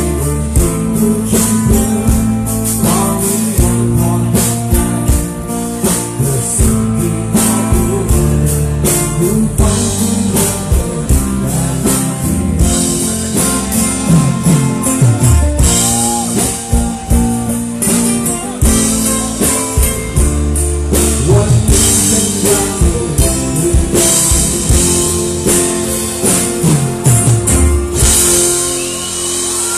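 Live rock band playing loudly on stage, with electric and acoustic guitars, a drum kit and a lead vocal over a steady beat.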